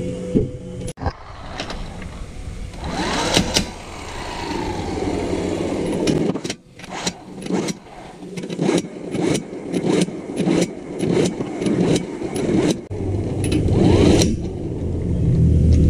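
Corded electric impact wrench running a Perodua Viva's front axle nut through a socket, in a string of short hard bursts about two a second, then a longer steadier run near the end.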